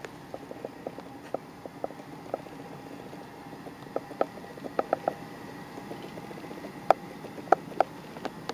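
Handling noise from a handheld camera being panned: scattered light clicks and taps at an uneven pace, a few sharper ones near the end, over a faint steady hum.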